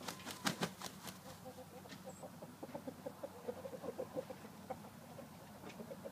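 Rooster clucking: a quick run of short, low clucks from about two and a half seconds in, after a few sharp clicks near the start.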